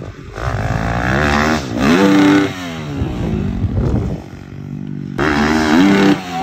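Dirt bike engine revving hard and easing off several times, its pitch climbing and falling as the rider hits the jumps, with the sound changing abruptly about five seconds in.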